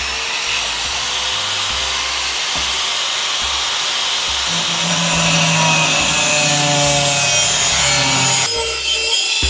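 Angle grinder running at speed. About halfway through, its thin cut-off disc bites into the side of a sheet-metal cable tray, and the sound grows louder and rougher as it cuts.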